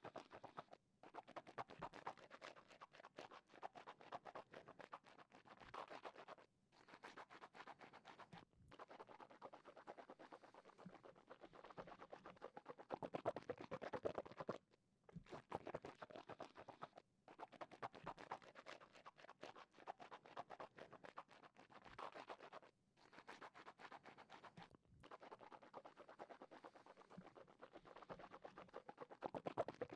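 Wet mouth sounds made with water in the mouth, close to a binaural microphone: dense crackly smacking and swishing in runs of a couple of seconds, with short pauses between them.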